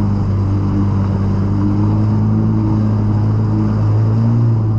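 Personal watercraft (jet ski) engine running at a steady cruising speed, heard from aboard as a steady low drone with hull and water noise over it.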